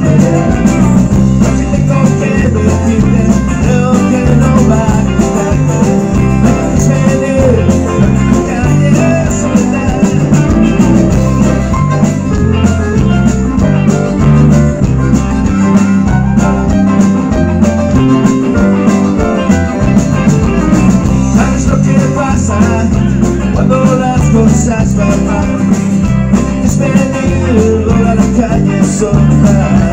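A rock band playing live and loud: electric guitars, bass and drums on a steady beat, with a diatonic harmonica played cupped against a vocal microphone.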